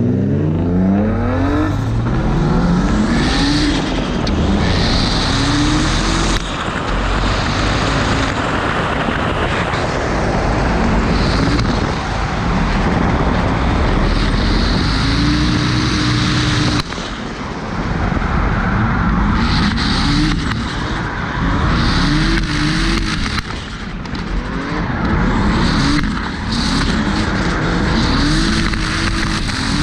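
Drift car's engine, heard from the bonnet, revving up and falling back again and again through the corners, with tyres squealing; about halfway through the revs cut off suddenly for a moment before climbing again.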